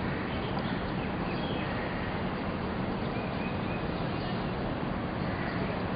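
Steady outdoor ambient noise at an even level, with a low steady hum and a few faint high bird chirps.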